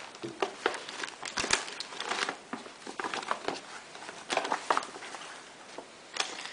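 Tough plastic MRE meal bag crinkling and rustling as the packets inside are pulled out, in irregular crackles.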